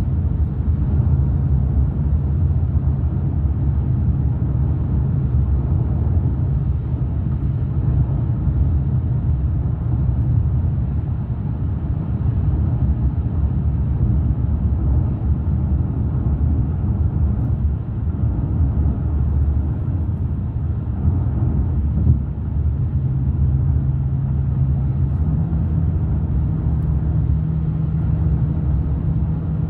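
Steady low road and engine rumble inside a moving car's cabin, with a low drone that steps up in pitch twice in the later part.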